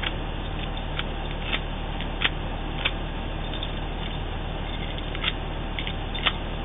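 Sharp metallic clicks, about a dozen, scattered and uneven, from a key being worked in a small Brinks Discus padlock. Under them runs the steady low hum of an idling truck engine.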